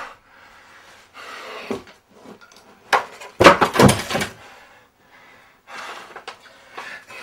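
A short knock about three seconds in, then a loud crashing thump that lasts about a second, with softer rustling sounds before and after.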